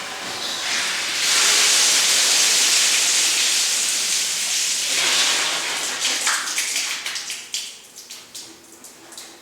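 Hot, freshly soldered copper water-line joint hissing and sizzling with steam. The hiss builds about a second in, holds steady for several seconds, then breaks into fading crackles as the joint cools.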